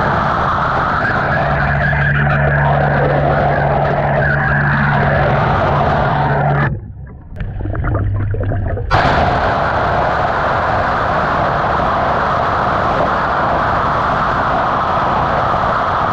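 Underwater rush and crackle of a CavitCleaner cavitation lance jet working on a fouled hull, steady and loud, with a low hum under it in the first part. It drops away briefly near the middle, then carries on.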